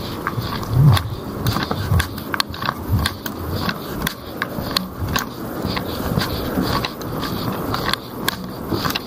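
Footsteps walking on a rough paved lane: a run of irregular scuffs and sharp clicks, two or three a second.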